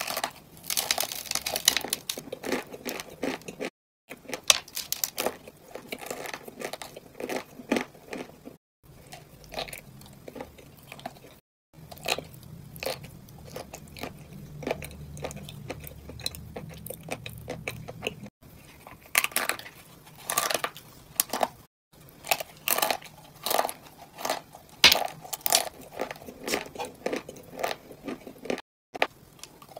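Close-up crunching and chewing of dry, crumbly clay chunks: repeated sharp bites and gritty grinding between the teeth. The crunching is interrupted by several brief dead-silent gaps where the recording is spliced.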